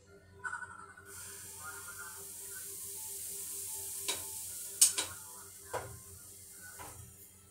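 Pancake batter sizzling in a hot frying pan, the hiss starting abruptly about a second in and fading near the end. Several sharp clinks of a spoon against the bowl and pan come in the second half.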